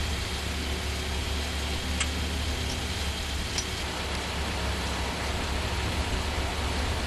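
Linde 39X forklift's engine idling steadily: a low, even hum under a faint hiss, with two faint clicks about two and three and a half seconds in.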